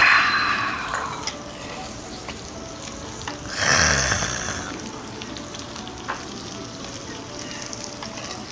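Meat sizzling on a hot barbecue griddle, a steady crackle with two louder surges of sizzling, one at the start and one about three and a half seconds in, as pieces are moved or laid on the hot plate.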